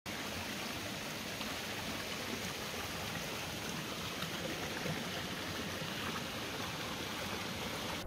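Shallow stream running over rocks: a steady rush of water.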